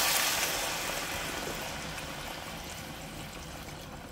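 Sizzling from a hot pot of seared chicken thighs, dying away steadily as the just-poured vegetable stock takes up the pan's heat.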